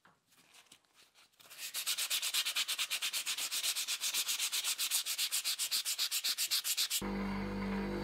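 Quick, even back-and-forth rubbing of a metal belt-buckle plate by hand, several strokes a second, starting after faint scratching. Near the end it cuts off abruptly and is replaced by the steady hum of an electric motor spinning a wheel on its spindle.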